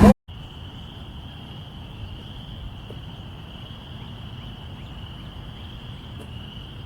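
Loud train noise cuts off abruptly right at the start. After that, crickets trill in one steady, unbroken high-pitched chorus over a faint low background hum.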